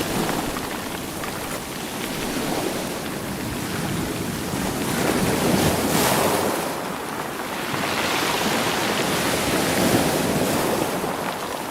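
Sea waves surging in against rocks and rolling stones, a steady rush that swells loudest about five to seven seconds in and again near ten seconds.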